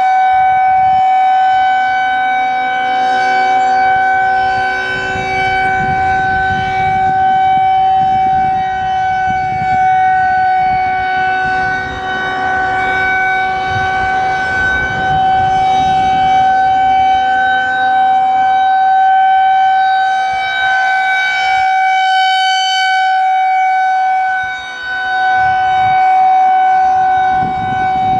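Federal Signal 2001-130 single-tone electromechanical outdoor warning siren sounding a full alert: one loud, steady tone held at a constant pitch, with a low rumbling noise underneath.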